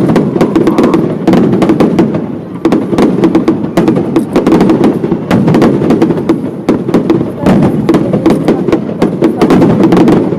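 Fireworks display: a rapid, irregular barrage of bangs and crackles, many per second, with no let-up.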